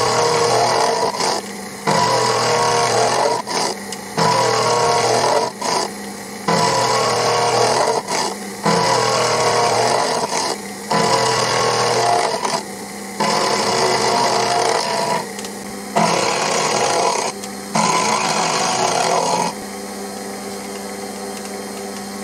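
Proxxon FF 230 mini mill's end mill cutting a hex flat on a steel nut, turned below the cutter's rated speed. The loud, noisy cutting comes in passes of a second or two, about nine times, over the steady hum of the mill's motor. Near the end the cutting stops and only the motor runs.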